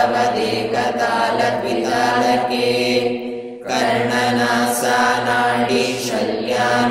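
A voice chanting Sanskrit verses in a measured recitation style, with long held vowels and one short break for breath a little past the middle. A steady low hum runs underneath.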